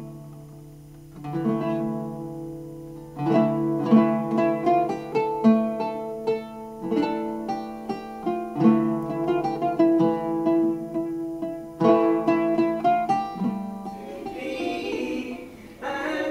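Background music: a plucked string instrument plays a melody of separate plucked notes. Near the end the plucking stops and singing voices come in.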